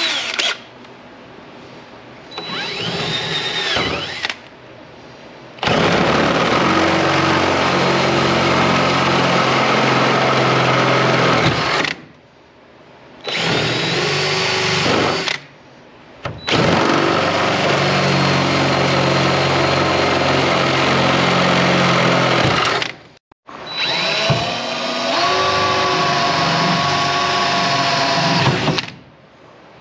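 Cordless drill boring holes through a pickup truck's bed cargo rail. The drill whines steadily in five separate runs, stopping and starting between them; the three longer runs are loud and the last changes speed.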